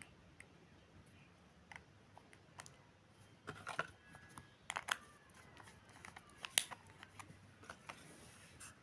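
Scattered small plastic clicks and taps as a plastic e-liquid bottle and its dropper cap are handled and the cap is put back on, with the sharpest click about two-thirds of the way through.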